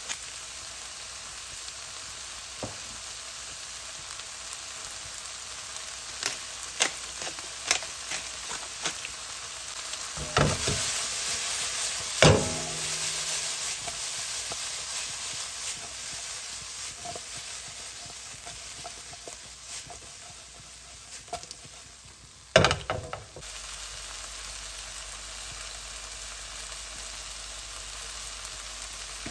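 Sliced peppers and onions sizzling as they fry in a nonstick wok, with a spatula clicking against the pan now and then. About ten seconds in the wok is shaken and tossed on the gas hob, with louder knocks and scraping, and there is one more sharp knock about two-thirds of the way through.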